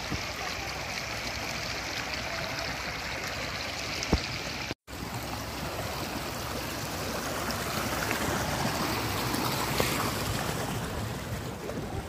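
Shallow river water running over rocks in small rapids, a steady rushing. The sound cuts out for an instant just under five seconds in.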